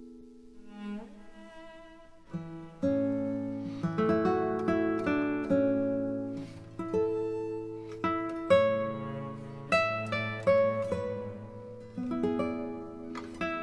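Instrumental background music led by a plucked guitar. It is soft and sparse at first, then grows fuller about two and a half seconds in, with a low bass line under picked notes.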